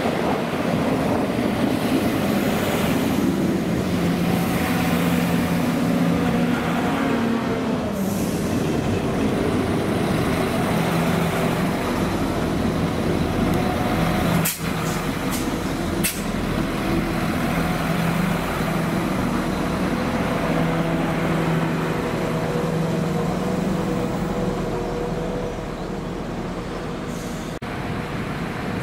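Irish Rail 22000 Class diesel multiple unit running into the station, its underfloor diesel engines droning steadily, with two sharp clicks about halfway through.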